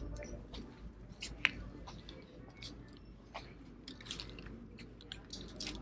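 Plastic clothes hangers clicking against each other and scraping on a metal clothing rack as dresses are pushed aside: a scatter of light, sharp clicks, with one louder click about a second and a half in.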